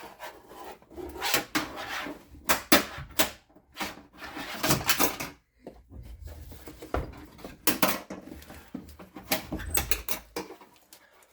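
Irregular clicks, knocks and scraping from rummaging inside a car door's hollow shell, fishing for a small part that has fallen down inside it.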